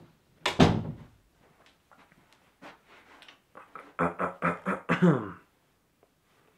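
A loud thump about half a second in, then a quick string of short voice sounds about four seconds in, the last one falling in pitch.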